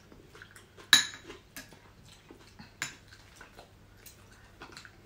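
A metal spoon clinking against a ceramic bowl a few times, the loudest clink about a second in, with smaller taps between.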